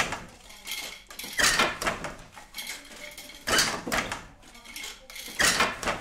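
Old wooden hand loom at work: a loud wooden clatter about every two seconds, with lighter knocks and clicks between.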